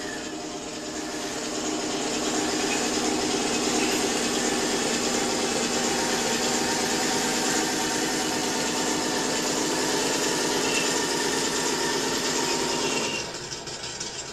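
RC model tank driving: a steady mechanical whirr of its drive motors and gearboxes, mixed with the engine sound from its sound unit. It drops away about 13 seconds in as the tank stops.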